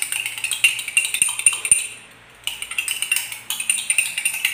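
Metal spoon stirring and tapping inside a glass, a fast run of light clinks with the glass ringing, pausing briefly about two seconds in before starting again.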